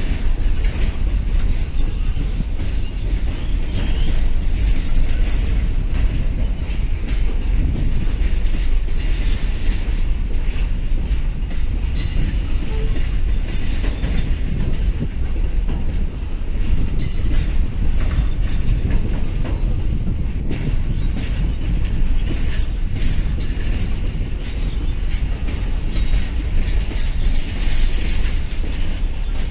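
Container freight wagons rolling past on steel rails: a steady, loud rumble of wheels on track, with short sharp clacks and squeals every few seconds.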